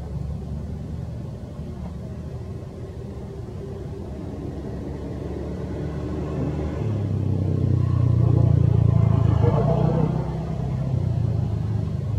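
Low rumble of a motor vehicle's engine that grows louder about halfway through, is loudest a little later, then eases off near the end.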